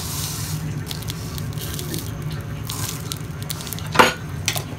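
Mustard seeds sizzling in hot oil in a pan: a steady hiss with small scattered crackles, and one louder sharp crack about four seconds in.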